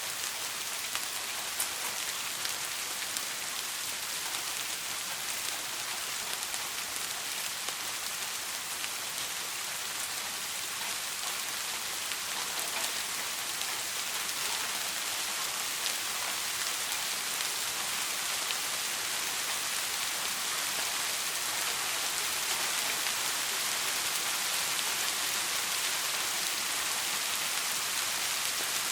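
Steady rain falling: a dense, even hiss of drops, with a few sharper single drop ticks standing out.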